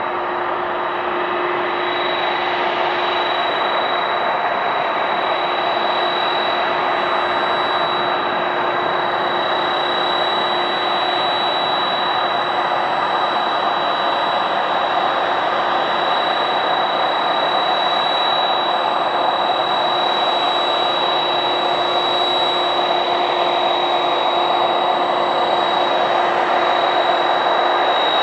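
Boeing 767-300ER's twin jet engines at taxi power: a steady rushing hum with a constant high whine, slowly growing louder as the airliner taxis toward the listener.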